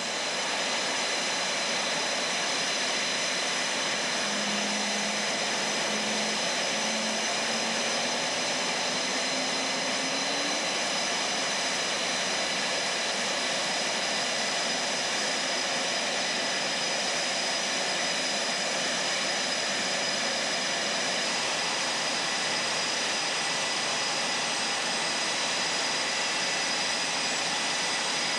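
Fighter jet engines running at taxi power on an F/A-18F Super Hornet: a steady turbine whine made of several high tones over a broad rush of jet noise.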